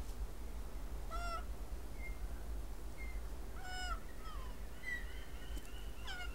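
Ring-tailed lemur giving two short meow-like calls, its contact call, about a second in and again near four seconds. Small birds chirp in short high notes toward the end, over a steady low hum.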